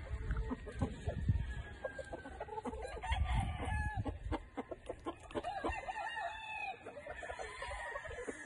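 Gamefowl rooster crowing and clucking, with scattered clicks and low thumps.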